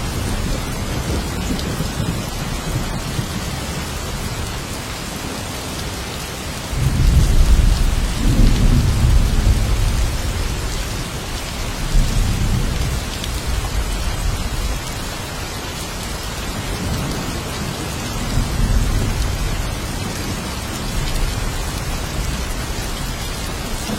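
Steady heavy rain hissing, with a deep roll of thunder that begins suddenly about a third of the way in and rumbles for several seconds, followed by fainter rumbles later.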